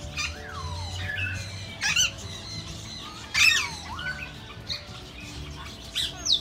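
A flock of parakeets calling: shrill squawks that sweep down in pitch, with three loud squawks about two, three and a half, and six seconds in.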